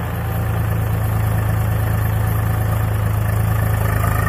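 Swaraj 744FE tractor's three-cylinder diesel engine running steadily, a deep, even drone.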